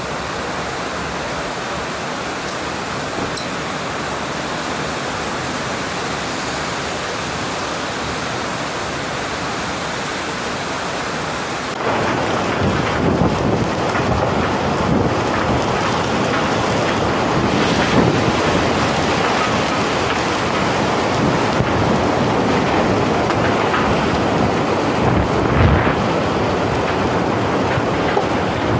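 Heavy rain pouring steadily. About twelve seconds in it gives way to a louder windstorm: torrential, wind-driven rain with gusts buffeting the microphone in rumbling bursts.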